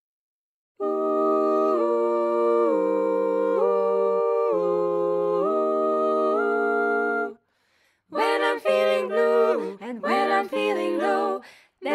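A cappella barbershop quartet holding wordless four-part chords that change step by step. After a short break about seven seconds in, the quartet starts singing the verse with words.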